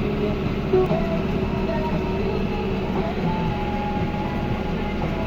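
John Deere 6430 Premium tractor's diesel engine running steadily while pulling a round baler through the hay, with a thin steady whine coming in about three seconds in.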